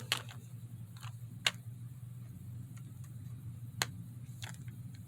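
A few isolated sharp clicks or taps, four spread over the few seconds and the strongest about a second and a half in, over a steady low hum.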